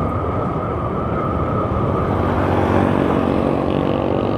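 Honda Vario 150 scooter riding at steady road speed: its single-cylinder engine and drive drone under heavy wind rumble on the microphone, with a steady high whine. The engine's pitched note comes through more clearly in the second half.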